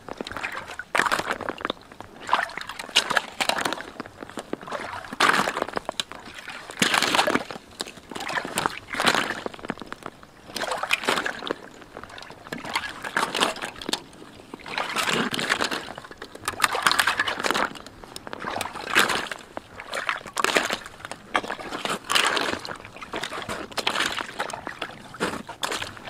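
Footsteps in rubber boots sloshing and splashing through water and mud in a muddy tractor rut, at a steady walking pace of about one step a second.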